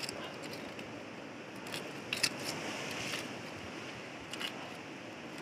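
Metal knife blade scraping and clicking against rock as it is worked into a crevice to pry out gooseneck barnacles: a few short sharp scrapes, the loudest a little over two seconds in, over a steady hiss.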